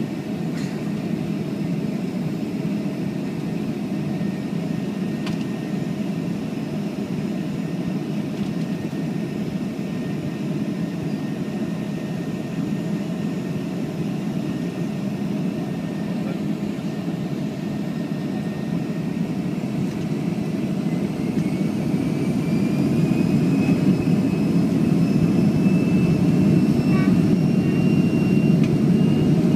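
Boeing 737-500's CFM56 turbofan engines heard from inside the cabin over the wing: a steady low rumble with a faint whine while taxiing, then, about two-thirds of the way through, the whine rises in pitch and the rumble grows louder as the engines spool up toward takeoff thrust.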